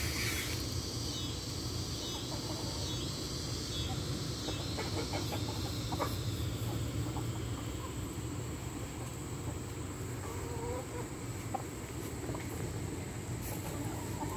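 A flock of backyard chickens foraging, with scattered soft clucks and pecking, over a steady high insect chirring.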